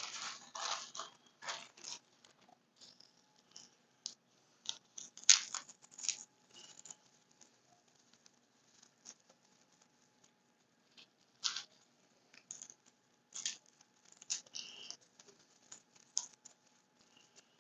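Vintage wristwatches being handled: faint scattered clicks, taps and brief rustles, with a sharper click about five seconds in and a few more around eleven and thirteen seconds in.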